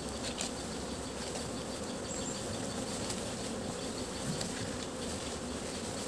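Honey bees buzzing around the hive boxes of an apiary, a steady, even hum.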